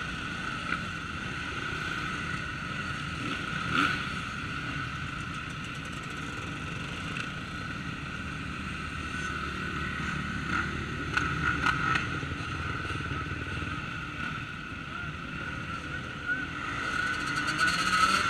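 Motocross dirt bike engines running at low revs, a steady drone with a few brief clicks.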